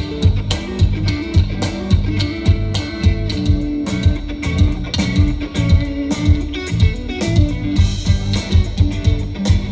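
A rock band plays live: distorted electric guitars and bass over a steady drum beat, loud and continuous.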